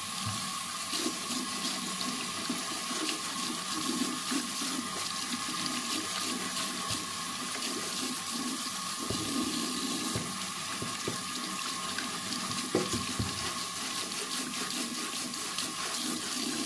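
Water from a bathroom tap running steadily onto a shoe in the sink while a brush scrubs the shoe, with a few light knocks about nine to thirteen seconds in.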